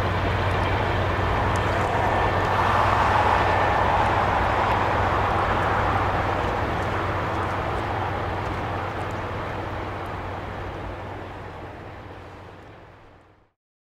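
CP Rail intermodal freight train rolling by: a steady rumble of wheels on rails with a low hum. It fades out over the last few seconds.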